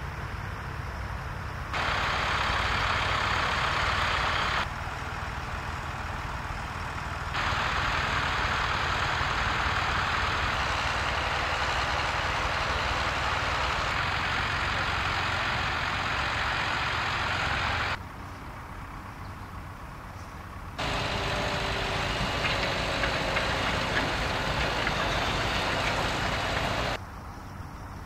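Tractor engines running steadily while ploughing, in several short clips that cut in and out abruptly. A hiss over the low engine hum is louder in some clips than in others.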